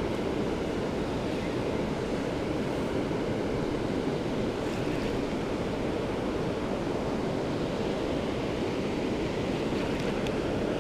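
Steady rushing of water pouring over a river weir, mixed with wind on the microphone.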